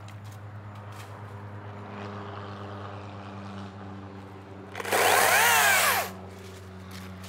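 Makita 18-volt battery top-handle chainsaw run in one short burst of about a second near the end, its motor whine rising as the chain spins up and falling as it winds down. A steady low hum runs underneath throughout.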